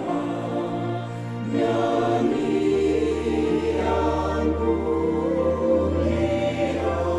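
Choir singing a Christmas carol in sustained harmony, accompanied by an instrumental ensemble; the music swells louder about a second and a half in.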